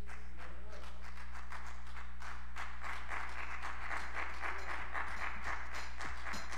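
A congregation applauding, the clapping growing fuller about two and a half seconds in.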